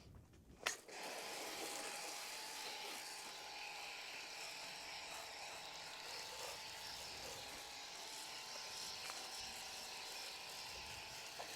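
Pressure washer foam cannon spraying car-shampoo foam onto a motorcycle: a click under a second in, then a steady spray hiss with a faint motor buzz underneath.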